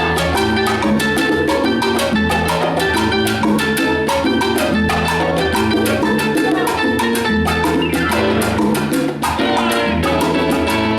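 Salsa band playing live: a steady, driving percussion rhythm over bass notes and pitched instrument lines.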